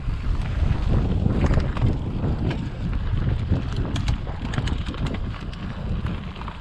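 Wind buffeting a camera microphone on a bicycle rolling down a dirt singletrack, with the crunch of tyres and scattered clicks and rattles from the bike over rough ground, thickest about four to five seconds in.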